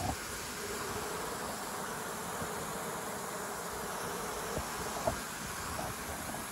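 Honeybee colony's strong, steady hum as workers fan their wings at the hive entrance, circulating air to evaporate water from fresh nectar. A few brief ticks about two-thirds of the way through.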